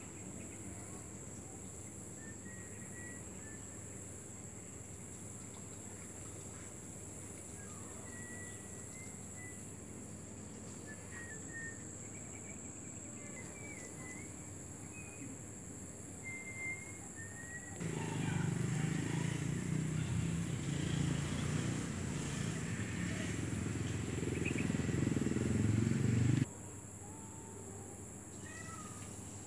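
Steady outdoor insect chorus, a continuous high buzzing, with scattered faint short chirps. About two-thirds of the way through, a much louder low rumble comes in for about eight seconds and then cuts off abruptly.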